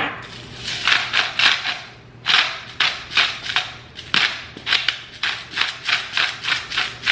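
Hand-twisted grinder cracking coarse pink Himalayan salt: a run of short, crunchy grinding strokes, about three a second, with a brief pause about two seconds in.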